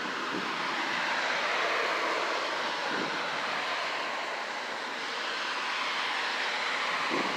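Derecho storm wind rushing steadily, swelling and easing a little in gusts.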